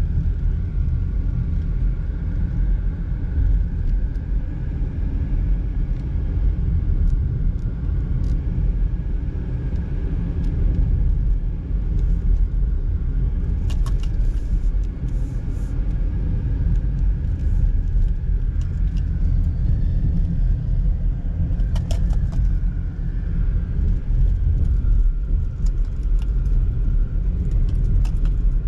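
Steady low rumble of road and engine noise inside a moving car's cabin, with a few brief clicks along the way.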